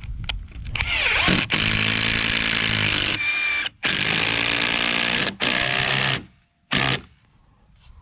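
A power drill driving long construction screws into timber. The motor runs in three long stretches of one to two seconds each, with brief stops between them, and pitches down as each drive ends. One short final burst comes near the end.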